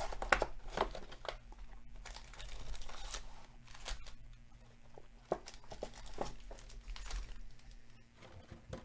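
A cardboard trading-card hobby box being opened and its foil card packs pulled out and set down: irregular crinkling and tearing with light taps.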